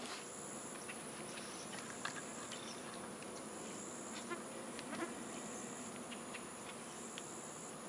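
Insects singing: a steady high-pitched drone, and over it a second shrill buzzing that switches on and off about every two seconds, with a few faint clicks.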